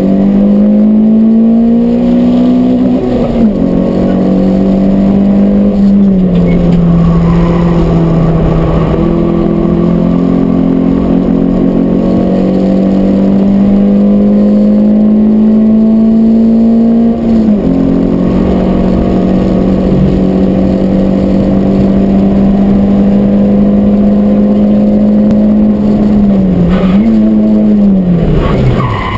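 Peugeot 106 S16's 1.6-litre 16-valve four-cylinder with a stainless Group N exhaust, heard from inside the stripped, caged cabin, running hard at high revs around a circuit. The pitch climbs slowly under throttle and dips sharply at gear changes, about three seconds in, around seventeen seconds and twice near the end.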